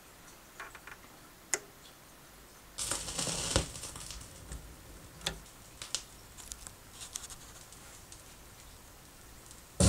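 HMV P660 turntable being cued: a few small clicks from the tonearm and cue lever, then the stylus coming down onto the spinning vinyl record about three seconds in with a brief rough scrape. After that come scattered pops and ticks of surface noise from the lead-in groove, and music starts right at the end.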